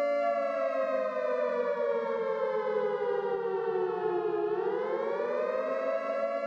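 Warning siren sounding a chord of several tones that slowly sinks in pitch for about four seconds, then swings quickly back up and holds steady.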